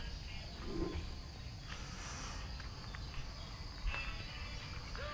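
Insects chirring steadily in one high, even tone, over a low rumble.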